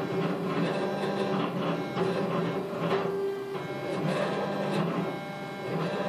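K40 40-watt CO2 laser cutter running a cutting pass, its motors driving the laser head around the letter outlines: a buzzing, machine-like whine whose pitch shifts every second or so as the head changes direction.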